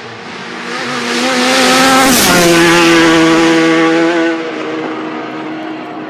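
Racing motorcycle at full throttle passing close by: the engine note builds to its loudest about two seconds in, drops sharply in pitch as the bike goes past, then fades.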